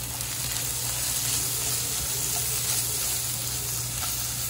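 Masala of chilli, fennel, turmeric and coriander powders frying in hot oil in a pan, a steady sizzle, as the raw smell of the spices is cooked off.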